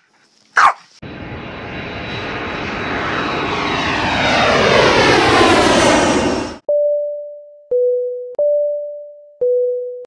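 An edited airplane flyby sound effect: a rushing engine noise that swells for about five and a half seconds with falling pitch, then cuts off suddenly. It is followed by a two-tone chime sounding high-low twice, each note struck and fading.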